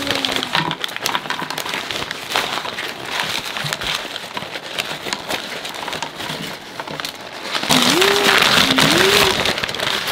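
Paper bags rustling and crinkling as French fries, potato bites and fried chicken pieces are shaken out onto a plastic tray, with many small clicks and taps of the food landing. The rustling grows louder about eight seconds in, as the bag of fried chicken is emptied.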